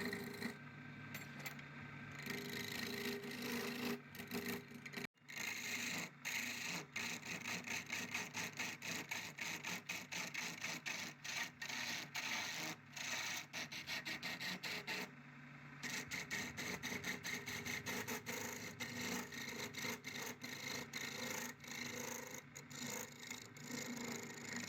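Rapid rough rubbing and scraping strokes over a steady low hum, briefly cut off about five seconds in.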